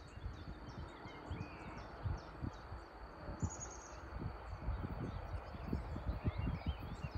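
Wind buffeting the microphone in uneven low gusts, with songbirds chirping and calling throughout and a short buzzing trill about three and a half seconds in.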